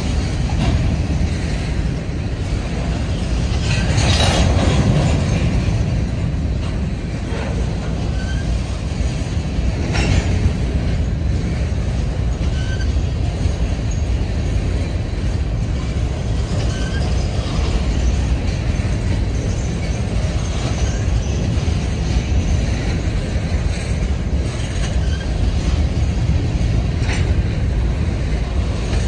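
Grain train's covered hopper cars rolling past on the rails: a steady low rumble of steel wheels on track, broken by a few louder clanks, and faint brief wheel squeals.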